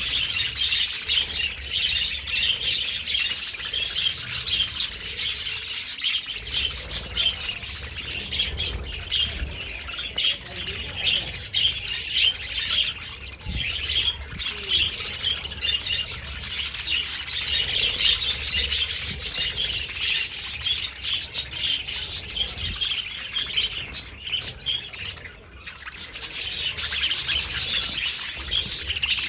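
Budgies (budgerigars) chirping continuously, a dense stream of short, high chirps, with a brief lull about three-quarters of the way through.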